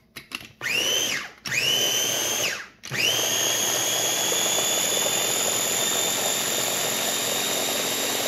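Ninja electric food chopper blending jalapeño cornbread batter, with a few clicks at the start. The motor is pulsed twice briefly, then held on in a steady whine, its pitch rising as the blade spins up each time.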